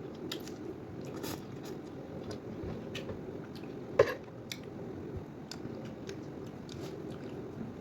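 A person chewing and eating vegetable soup, with small mouth and utensil clicks and one sharp click about four seconds in.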